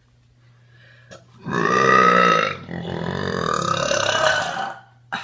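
A woman's long burp, lasting about three seconds from about one and a half seconds in, loudest in its first second and then drawn out more quietly.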